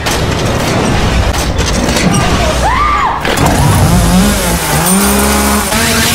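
Chainsaw engine revving up and down over and over, its pitch rising and falling with each rev. Near the end the running saw is cutting through a wooden door.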